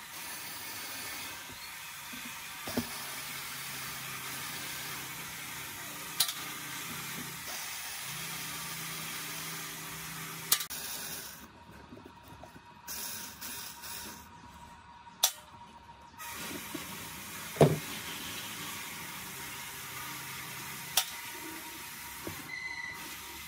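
Cordless screwdriver running in spells of several seconds as it backs out the screws holding a speaker woofer's frame to its particleboard baffle, with a handful of sharp knocks between spells, the loudest about three-quarters of the way through.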